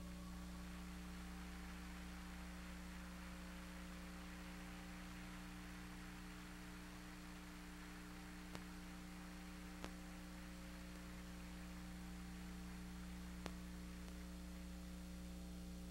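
Steady electrical mains hum with its overtones under a low hiss, broken by three faint ticks in the second half.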